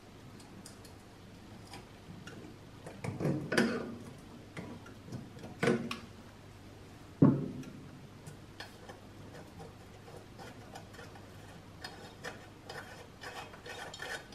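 Small metal clicks, taps and light scraping as the filler cap is pressed into the tank of a kerosene hurricane lantern. There are a few clustered clicks in the first half, the loudest a single sharp click about seven seconds in, then faint ticking near the end.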